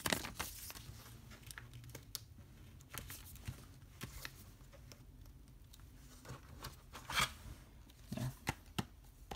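Handling of a paper insert and an open Blu-ray steelbook case: light rustling and scattered small clicks, with a louder rustle of paper about seven seconds in and a sharp click near the end.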